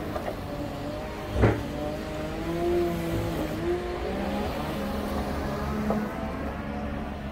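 Wheel loader's diesel engine running close by, its pitch wavering slightly up and down, with a single sharp knock about a second and a half in.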